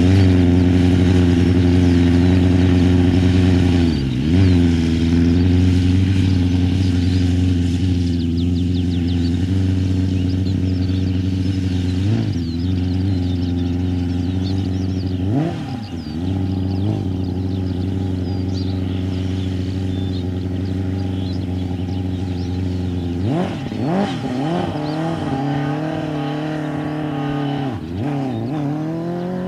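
Formula SAE race car's 2007 Suzuki GSX-R600 four-cylinder motorcycle engine, fitted with a 20 mm intake restrictor, running under way at mostly steady revs. About five times the revs dip briefly and pick up again, and the sound grows slowly quieter as the car moves off.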